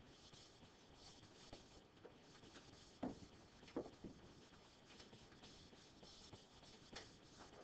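Near silence: room tone with a few faint short clicks or taps.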